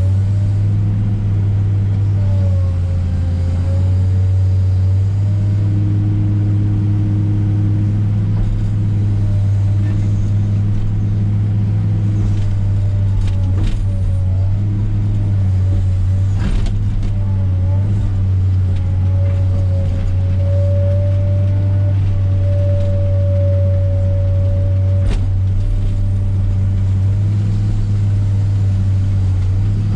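Komatsu PC300 excavator's diesel engine running steadily at working revs under a heavy, even hum, with a thinner whine that rises and falls. A few sharp knocks come in the middle and once more later on.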